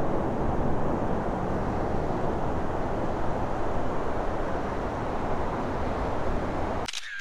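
Steady rushing outdoor noise, heaviest in the low end, with no distinct events in it. It cuts off abruptly near the end, leaving a brief faint tone and then silence.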